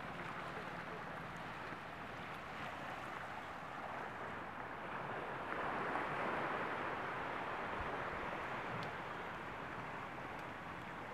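Beach ambience: small waves washing steadily on the sand, swelling a little about halfway through.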